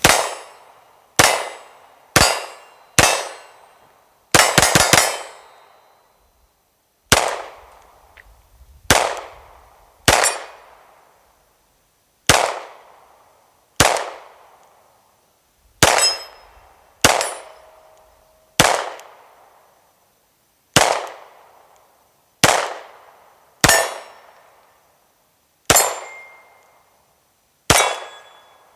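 9mm pistol, the FN 509 Tactical, being fired: single shots about every one to two seconds, with a quick string of four or five shots about four seconds in. Each shot is followed by a ringing echo that dies away over about a second.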